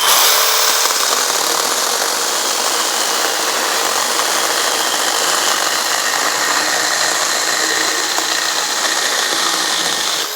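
Battery-powered 4-inch mini cordless chainsaw running under load as it saws through a thick log, steady for about ten seconds and then stopping abruptly at the end. It is left to cut under its own weight without being pushed, so it runs through the cut without stalling.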